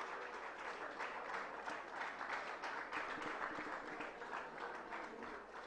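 Audience applauding: a steady patter of many hands clapping, fairly quiet.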